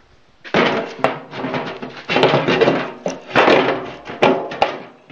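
Metal lid being worked onto the rim of a wood gasifier's hopper drum: about six rough bursts of scraping and clanking with a few sharp knocks.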